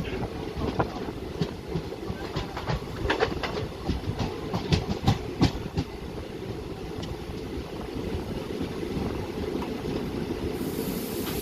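Passenger train running on the rails: a steady low rumble with irregular wheel clicks and clacks over the rail joints, smoothing out about halfway through. A high hiss comes in near the end.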